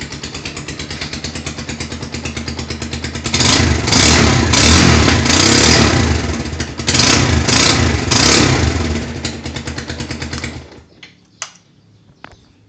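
Bajaj Rouser 220 motorcycle engine idling with an even, rhythmic knock. It is revved in several blips from about three seconds in, settles back to idle, and cuts off near the end. The knock is the unexplained fault the owner is asking for help with.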